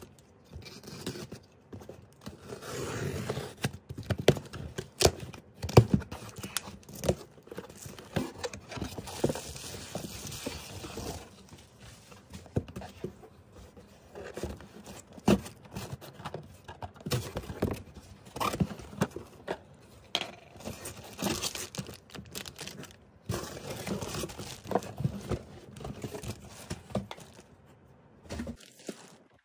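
Cardboard shipping box being cut open with a utility knife and its flaps pulled apart: irregular scraping, tearing and knocking of cardboard, loudest a few seconds in.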